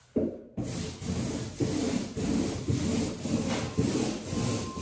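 Mini gloss roller rolling paint back and forth over a door panel: a rhythmic rubbing swish at about two strokes a second.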